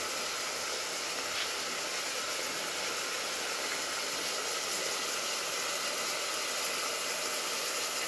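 Mutton frying in oil in an open pressure-cooker pot, a steady sizzling hiss.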